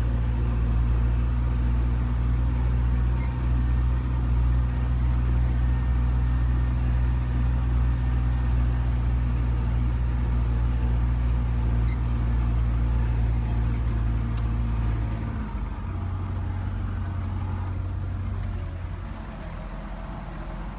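Belarus MTZ 820 tractor's four-cylinder diesel engine running steadily under load, pulling a disc plough. About 15 seconds in the engine note drops in pitch and gets quieter, and quieter again near the end.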